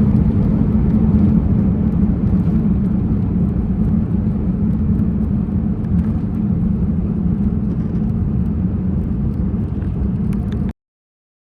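Boeing 787 cabin noise on the landing rollout just after touchdown: a steady low rumble that slowly eases, then cuts off suddenly near the end.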